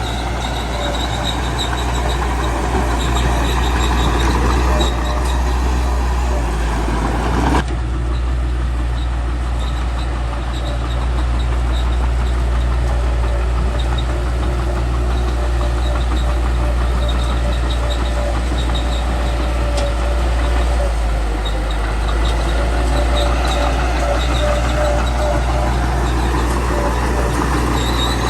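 Small bulldozer's diesel engine running steadily under work, with a faint repeated high-pitched squeak over the deep drone. The sound changes abruptly about eight seconds in.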